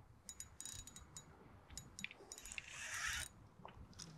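Faint, irregular clicks and ticks of a fishing rod and reel being worked while a big fish is played, with a short soft hiss about three seconds in.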